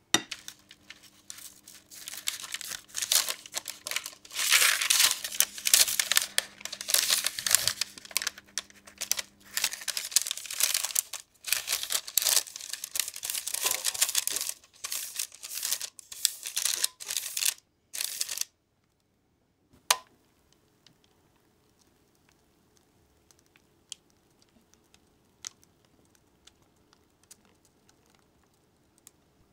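Brown parchment paper crinkling and rustling as it is crumpled and pressed into a square metal cake pan, a dense run of crackles. It stops about two-thirds of the way through, leaving only a few faint ticks.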